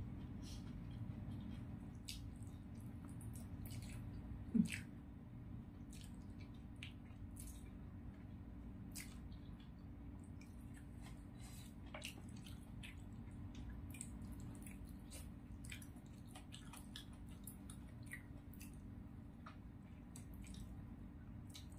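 Close-up eating sounds: wet chewing, sucking and lip smacks on spicy chicken feet with rice, heard as many small scattered clicks and squishes over a steady low hum. One brief louder sound comes about four and a half seconds in.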